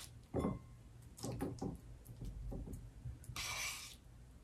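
Metal spoon scooping cottage cheese out of a plastic tub into a bowl: a few soft knocks and taps, with a brief scrape about three and a half seconds in.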